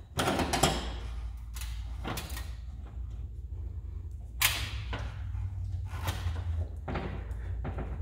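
About six short, irregular knocks and scrapes as a small L bracket is worked onto a sheet-metal garage wall with a cordless drill, over a steady low hum.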